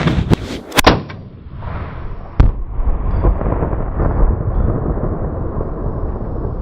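Sharp, loud bangs of a rifle shot and a Tannerite detonation blowing up a washing machine: one about a second in and another about two and a half seconds in. Between and after them comes a rumbling, wind-like noise.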